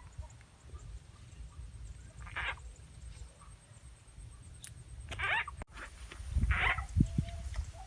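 Frog calls: three short croaks a few seconds apart, over a low rumble.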